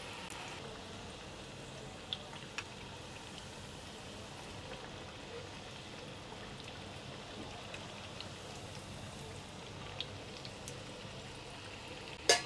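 Chakli deep-frying in hot oil, two at a time: the oil sizzles and bubbles steadily, with a few light clicks. The oil is still bubbling hard; the bubbling has to die down before the chakli are fried through.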